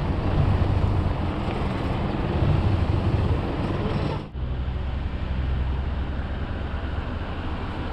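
An engine running steadily under rushing wind noise, with an abrupt cut about four seconds in.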